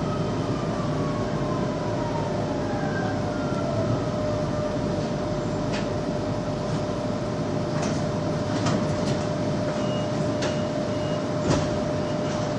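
Underground metro train running, its motor whine falling in pitch over the first few seconds as it slows, over a steady rumble and one held tone. Several sharp clicks and knocks come in the second half.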